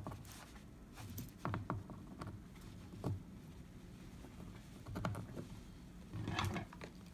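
A few scattered light clicks and taps as the plug of a kayak navigation light is fitted into a battery box's socket.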